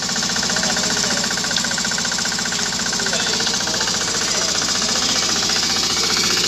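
Small engine of a portable power unit running steadily at a fast, even beat.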